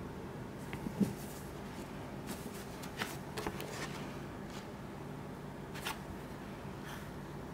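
Paper pages and the card cover of a thick paperback manga omnibus rustling as gloved hands open it and turn its pages: a handful of short, separate rustles over a faint steady hum.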